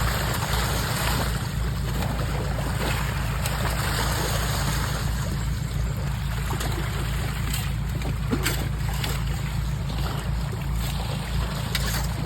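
Steady rush of flowing water with a low rumble underneath and a few light knocks.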